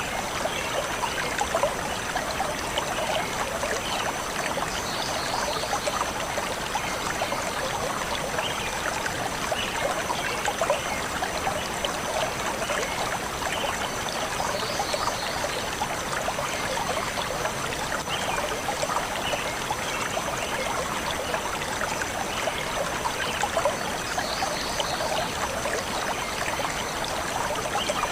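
A forest stream flowing steadily over stones, with a few faint bird chirps now and then.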